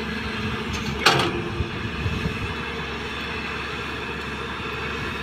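JCB 215 excavator running with a steady mechanical rumble, with one short, sharp noise about a second in.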